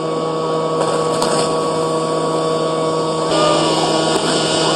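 Steady mechanical drone of a motor or blower running: a constant hum with several steady tones over an even rushing hiss.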